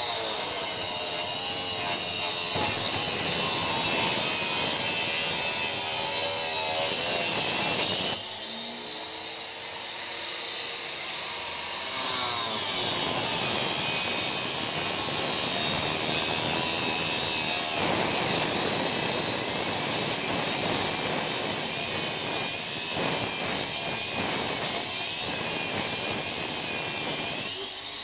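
Small angle grinder with a cutting disc whining at high speed as it cuts through a bicycle frame's tubes. Its level drops and its pitch sags at about 8 seconds, picks up again from about 12 seconds, and it cuts off just before the end.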